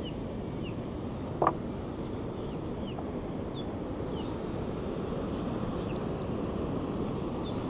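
Steady wind on the microphone and ocean surf, with faint short high chirps now and then and one brief sound about a second and a half in.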